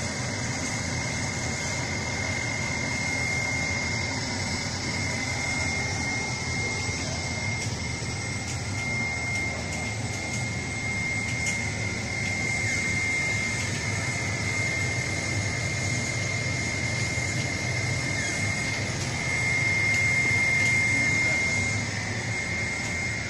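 Three-layer laminating air bubble film machine running in production: a steady mechanical hum with a constant high-pitched tone and hiss over it, growing louder for a few seconds near the end.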